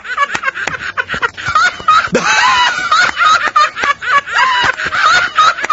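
Men laughing loudly, with fast, high-pitched cackles in short repeated bursts.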